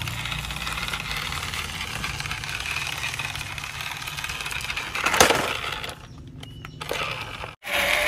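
Plastic toy trucks trundling over gritty dirt, a steady scraping rattle, with one loud plastic clatter about five seconds in.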